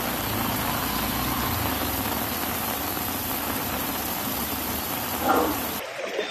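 Heavy rain pouring down as an even hiss, with motor-vehicle engines running underneath. A brief louder sound comes about five seconds in, and near the end the rain noise cuts off suddenly to something much quieter.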